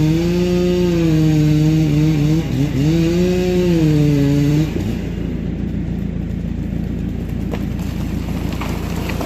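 Two-stroke chainsaw running at high revs, its pitch dipping briefly about two and a half seconds in and recovering, then dropping off sharply just under five seconds in, leaving a low steady rumble.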